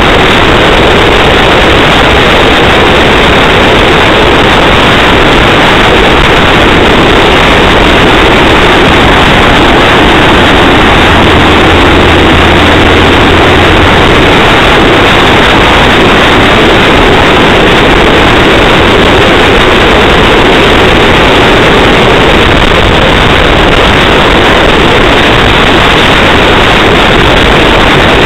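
Ford Focus driving along a country road: loud, constant road and engine noise with no letup, overdriven on the recording. A low hum comes in for about three seconds midway.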